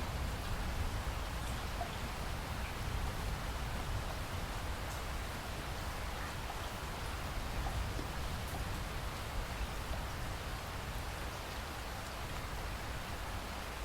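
Steady rain falling: an even hiss with a constant low rumble underneath and a few faint drop ticks scattered through it.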